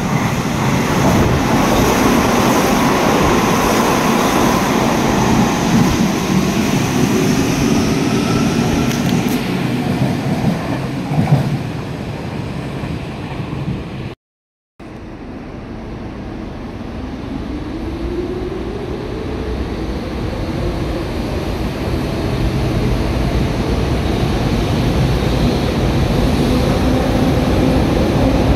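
Hanshin 5001-series electric train pulling out of a station, its motors and wheels running loud. After a short break in the sound, a train's motor whine rises steadily in pitch through the second half as the train gathers speed.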